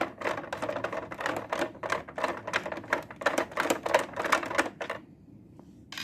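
Rapid, irregular clicking and rattling from hand work on the casing of a UPS unit being opened up, stopping about five seconds in.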